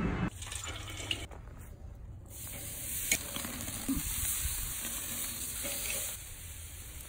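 Raw steak sizzling on the hot grate of a charcoal kettle grill as it is laid down with metal tongs, a steady hiss lasting a few seconds with a sharp click of the tongs about three seconds in.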